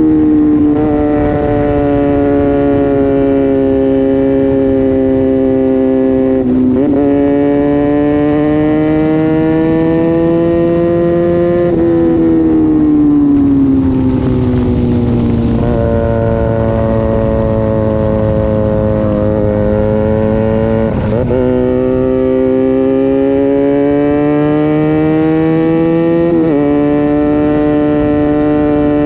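Sport motorcycle engine with an aftermarket exhaust running under way at steady revs. Its note drifts slowly up and down, with a few sudden jumps in pitch as gears change and one long slow fall in pitch about halfway through as the engine slows.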